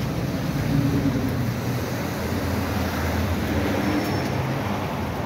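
Steady city street traffic noise from passing cars, with a low engine hum.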